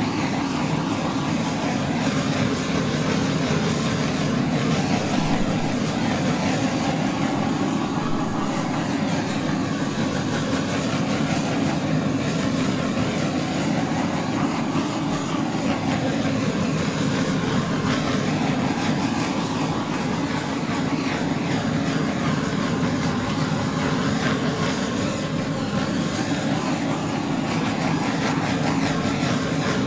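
Handheld butane torch burning with a steady, even hiss, played over wet acrylic pour paint to pop surface bubbles and bring up cells.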